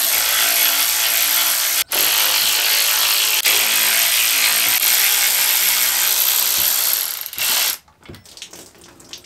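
Cordless electric ratchet running steadily as it backs out exhaust manifold bolts, with a brief pause about two seconds in. It cuts off about eight seconds in, and faint knocks follow.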